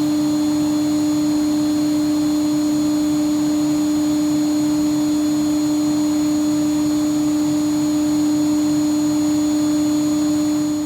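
Deckel Maho DMC 635V vertical machining center running, a steady machine hum with one strong pitch and fainter high whining tones above it, unchanging throughout.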